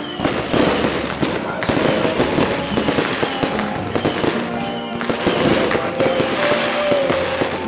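Aerial fireworks bursting and crackling, many sharp bangs close together, with music playing underneath.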